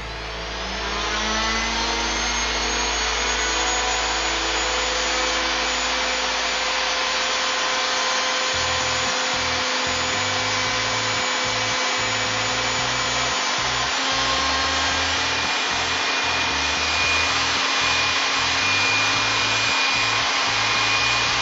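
Electric plunge router spinning up to speed over the first couple of seconds with a rising whine, then running steadily as its cutter mills a hinge mortise into the edge of a wooden door leaf.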